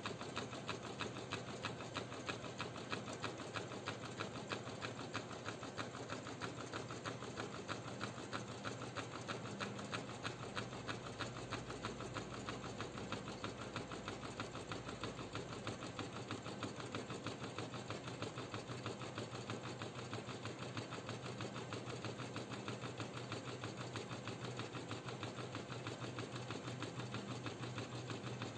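Usha 550E computerized embroidery machine running steadily, its needle stitching in a fast, even rhythm over a low steady hum.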